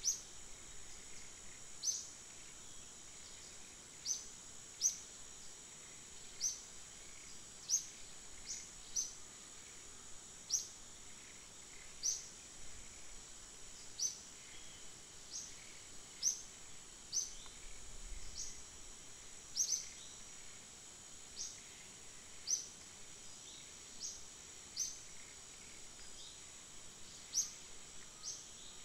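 Natural outdoor ambience: a steady high-pitched insect drone, with a bird repeating a short high chirp about once a second at uneven intervals.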